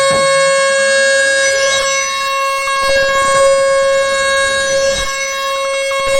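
A Black MIDI piece rendered by a piano soundfont, with so many notes at once that they blur into a loud, steady, horn-like drone. Several sweeps of pitch rise and fall through it.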